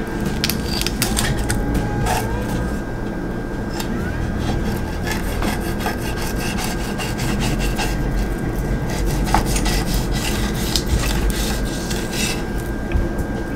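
Fillet knife cutting a fillet from a small bluegill and sliding between the meat and the skin on a wooden cutting board: a run of short rasping, scraping strokes of the blade against fish and board.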